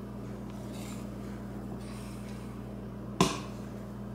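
Metal dough whisk working stiff bread dough in a glass mixing bowl: soft stirring and scraping, with one sharp knock against the glass about three seconds in. A steady low hum runs underneath.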